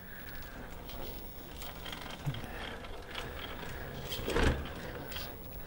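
Traxxas TRX-4 K10 RC rock crawler's electric motor and gears running as the truck crawls over steel wire mesh, its tires and chassis clicking and knocking on the wire. There is a louder clunk about four and a half seconds in.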